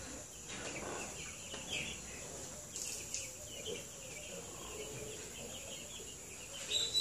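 A flock of two-week-old chicks peeping: a faint, continuous chorus of many short, high cheeps.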